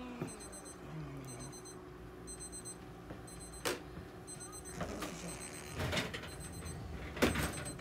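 An electronic alarm beeping: a short, high cluster of beeps repeating about once a second. A few sharp knocks and handling noises break in, the loudest near the end.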